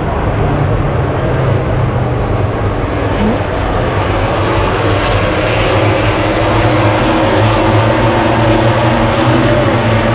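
Steady engine drone holding a constant pitch, with no revving or passes.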